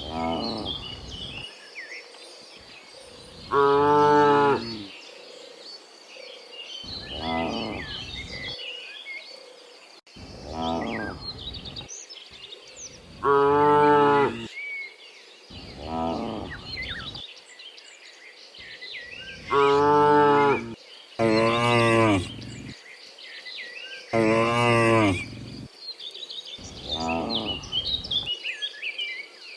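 A herd of cows mooing, about ten long calls from several animals. Some are loud and close, others fainter and farther off. Faint bird chirps can be heard between the calls.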